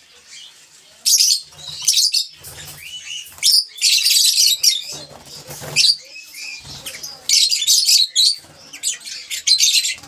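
Caged lovebirds chattering: repeated bursts of shrill, high chirps and squeaks, each under a second long, coming every second or so.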